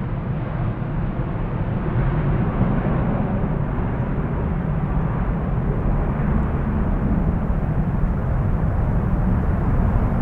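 Jet airliner engines heard as a steady rushing noise that slowly loses its higher tones, with wind buffeting the microphone.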